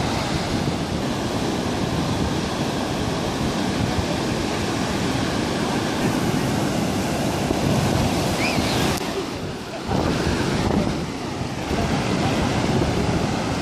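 Sea surf breaking and washing up a sandy beach: a steady rush of waves, with a short lull about ten seconds in.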